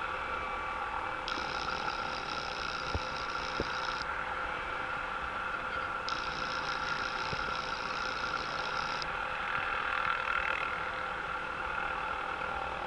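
Distant helicopter hovering: a steady hum and whine of its turbine and rotor that does not change pitch. A higher hiss comes in twice for a few seconds each time.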